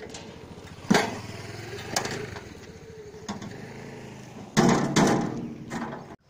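Turmeric rhizomes clattering out of a tipped two-wheeled metal hand cart, with sharp knocks about one and two seconds in. The loudest clatter comes about four and a half seconds in. A steady low mechanical hum runs underneath.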